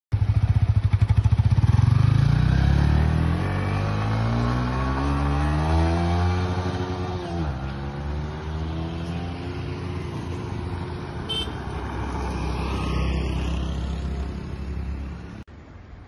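Yamaha R15 V4's 155 cc single-cylinder engine through its stock exhaust, accelerating hard with its pitch climbing steadily. The pitch drops sharply at an upshift about seven and a half seconds in, then climbs again as the sound grows fainter. The sound cuts off abruptly near the end.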